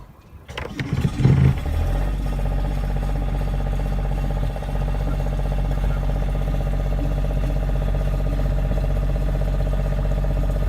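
Northern Lights 6 kW diesel generator running at a steady speed, starting with a second or so of loud, uneven sound.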